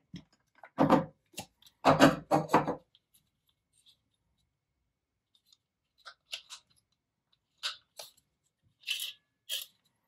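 Parts of an electric coffee grinder being handled and taken apart: a cluster of knocks and rattles in the first three seconds, a pause, then lighter clicks and scrapes as the burr and body are twisted and pulled apart.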